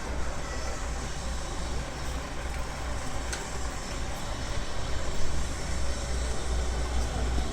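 Helicopter running close by: a steady, heavy low rumble from the rotor with a wash of noise over it.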